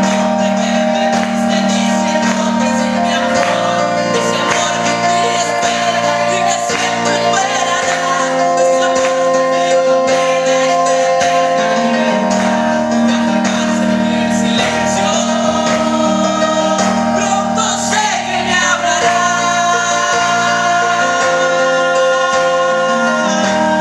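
Worship song: singing with long held notes over a steady instrumental accompaniment.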